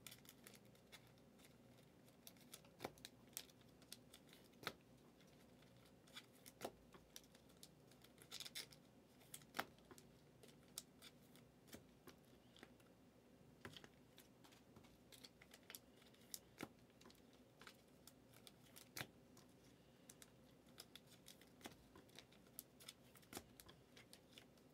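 Faint, scattered clicks and taps of trading cards being handled, squared up and set down on stacks on a table, about one a second, over a quiet room hum.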